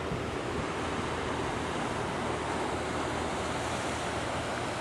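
Steady rushing of sea surf breaking on the rocks below, mixed with wind.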